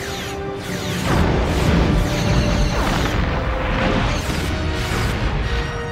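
Orchestral battle score with science-fiction space-combat effects: energy-weapon beams firing and several explosions striking a starship's hull.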